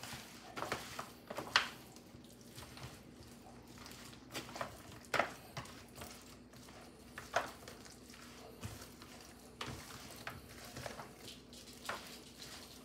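Gloved hand tossing sauce-coated brisket cubes in a disposable aluminium foil pan: soft wet squishing, with occasional sharp crackles from the foil pan.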